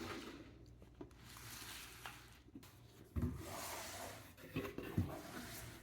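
Soft rubbing and shuffling of items and packaging being moved by hand on a table, with a few light thumps about three seconds in and near the end.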